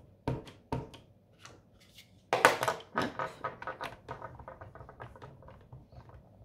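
Light clicks and taps of clear stamps and paper being handled on a craft table, with a brief louder rustle and clatter about two and a half seconds in, followed by a run of quick light ticks.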